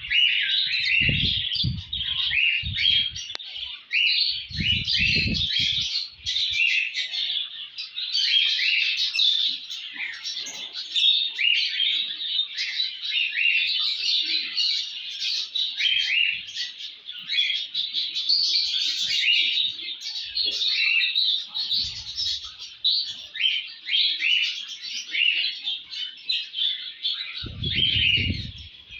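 A crowd of small cage songbirds chirping and twittering together, many short overlapping calls without a break. A few low rumbles or knocks come in the first seconds, around five seconds in and near the end.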